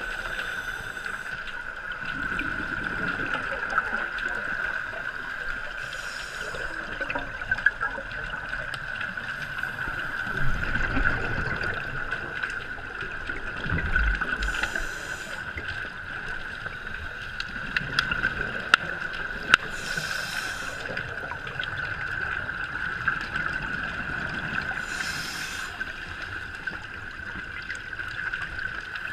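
Scuba diver breathing underwater through a regulator: four bubbly exhalation bursts several seconds apart, over a steady high-pitched hum and scattered faint clicks.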